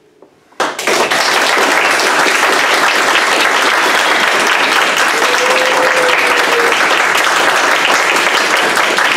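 Audience applauding: dense, steady clapping that breaks out suddenly about half a second in.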